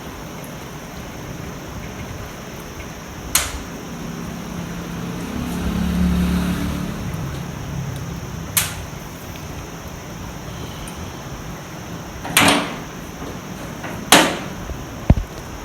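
Sharp knocks from tools and parts being handled while a motorcycle is serviced: five separate knocks, the loudest near the end, over a low rumble that swells and fades in the middle.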